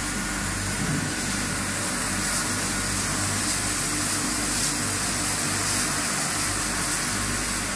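Crate washing machine running: a steady hiss of water spraying inside the wash tunnel over the even hum of its geared conveyor motors.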